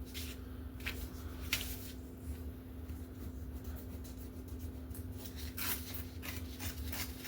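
Scrap paper being torn by hand into strips: a few short ripping rasps, coming more often near the end, over a steady low hum.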